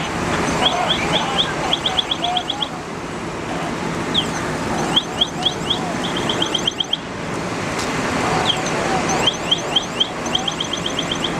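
Tractor-trailer fire burning with a steady rushing noise, under an electronic alarm chirping in quick runs of several rising chirps that repeat every second or two.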